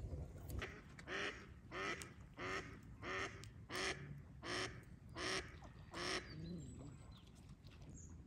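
Mallard duck quacking: a series of eight loud, evenly spaced quacks about two-thirds of a second apart, ending a couple of seconds before the end.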